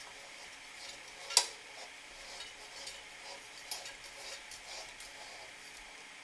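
Propane canister being screwed by hand onto a camp stove's hose fitting: a sharp click about a second and a half in, then faint scrapes and small ticks as the threads turn, with another click a little past the middle.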